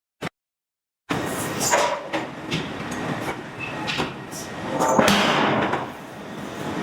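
Forge-shop din with several sharp metallic clanks and knocks of a hydraulic forging hammer working steel billets, and a rushing noise swelling about five seconds in. The first second is cut to dead silence.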